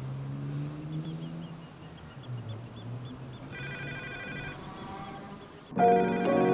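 A low hum that slides in pitch, then a high, trilling electronic ring for about a second, before music comes in loudly near the end.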